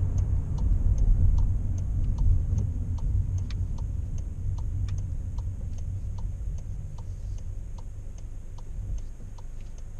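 Car turn-signal indicator ticking steadily, about three ticks every two seconds, inside a Škoda's cabin over the low rumble of engine and tyres. The rumble fades gradually as the car slows for a junction.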